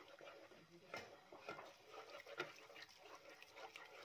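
Near silence, with faint scattered clicks and crackles from a wooden spoon stirring grated onion cooking in water in a non-stick pan.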